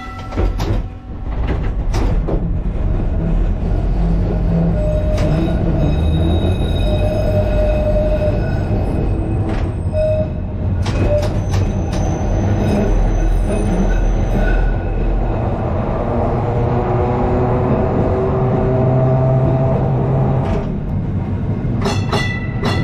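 Liverpool tram No.762, a 1930s bogie tramcar, running along the track, heard from its open driver's platform: a steady low rumble of wheels on rail with a motor whine that rises in pitch in the later part, and sharp clicks and knocks near the start and near the end.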